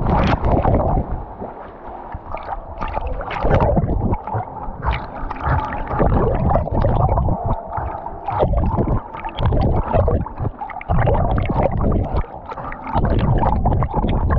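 Pool water splashing and gurgling around a camera strapped to a swimming dog, in irregular loud surges, going gurgly whenever the camera dips under the surface.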